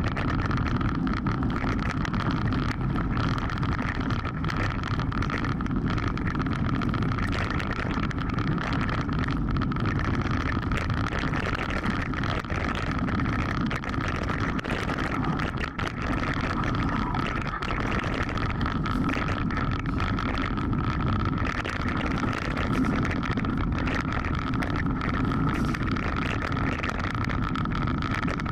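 Mountain bike descending rocky singletrack at speed: tyres rolling over stones and gravel and the bike rattling with many small knocks, with wind on the microphone and a steady high hum throughout.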